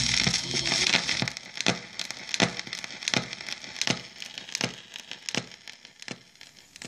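Homemade Audiodisc lacquer record spinning past the end of the song: surface hiss for the first second and a half, then a sharp click about every three-quarters of a second, once per turn of the disc, over faint crackle. The sound fades away near the end.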